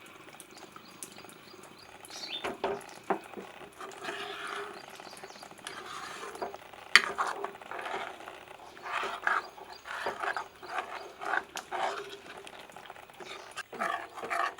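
Spoon stirring watery masala gravy in a pan: irregular wet scraping and sloshing, with a few sharp clinks of the spoon against the pan.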